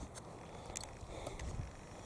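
Strong gusting wind buffeting the microphone: a faint, uneven low rumble, with a few faint ticks.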